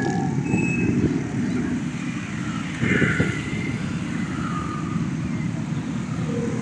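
Road traffic of cars and motorcycles, a steady rumble with a louder swell about three seconds in.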